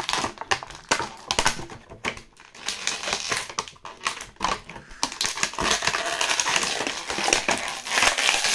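Clear plastic blister packaging crackling and crinkling as a figure is worked out of it by hand. The crackles are irregular, thin out for a moment about two seconds in, and turn dense and almost continuous in the second half.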